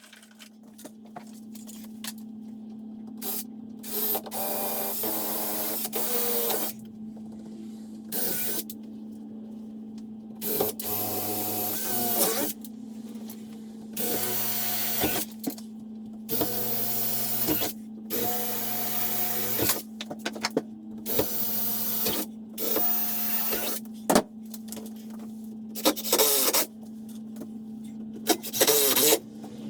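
A power tool cutting wood in about ten short runs of one to two seconds each, switched on and off between cuts, over a steady hum; it is notching the framing so cables can pass through.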